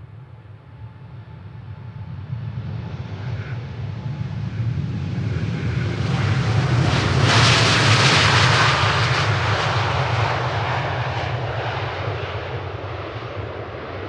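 Large jet airliner taking off and passing by: a low engine rumble with a rising hiss that swells to its loudest about halfway through, then slowly fades as the aircraft moves away.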